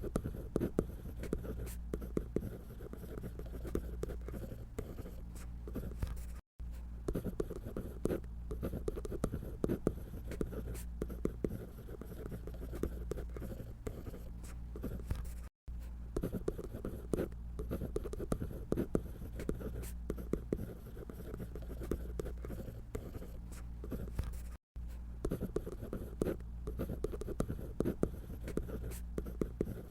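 Drawing tool scratching across paper in quick, irregular strokes as a figure is drawn. The strokes are broken three times by a split-second silent gap.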